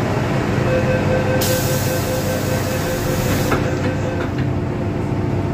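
MTR M-Train passenger doors closing: a rapid door-closing warning beep sounds for about four seconds, with a hiss in the middle, and the doors shut with a thud about three and a half seconds in. A steady hum from the standing train runs underneath.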